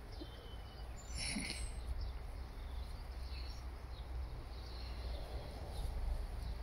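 Quiet outdoor garden ambience: a steady low rumble with a few faint, brief high chirps, most likely distant birds.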